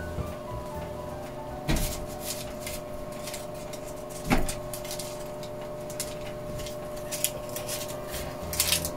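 A fork pricking holes in oven-roasted sweet potatoes on a parchment-lined metal baking tray: light clicks and scratches, with sharper knocks about two seconds in, about four seconds in and near the end. A steady hum runs underneath.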